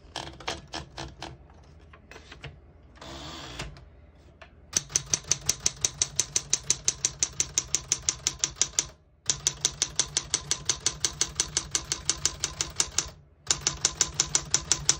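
1972 Smith-Corona Super Sterling manual portable typewriter being typed on: a few scattered clicks and a short rattle, then quick, even keystrokes about six a second in three runs with brief pauses between them.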